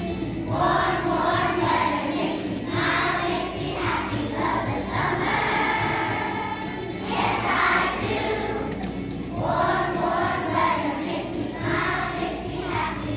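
A group of young children singing together as a choir, in phrases of a second or two with short breaks between them.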